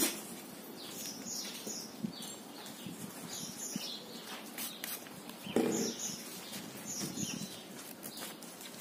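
Birds chirping repeatedly in the background, with small clicks and handling noises from objects and paper on a table. A short, louder pitched sound comes a little past halfway.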